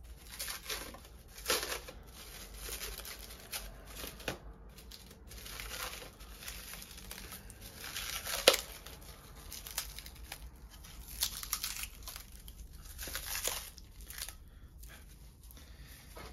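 Plastic wrap crinkling and tearing as it is pulled by hand off a packaged leather strop, in irregular rustles with one sharper snap about halfway through.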